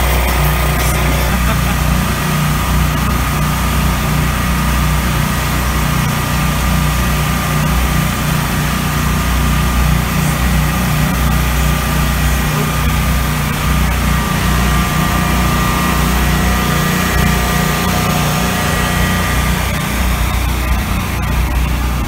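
Food-truck generators running with a steady low drone and a thin, steady whine above it.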